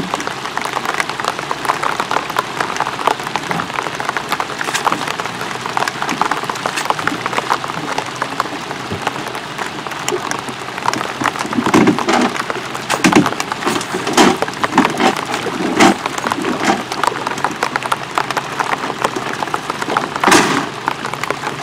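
Heavy rain falling, a dense crackle of countless drops, with a few louder knocks in the second half and one sharp one near the end.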